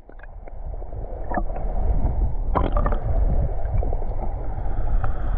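Low rumble and water noise of a boat on the sea, building over the first two seconds, with a few light knocks.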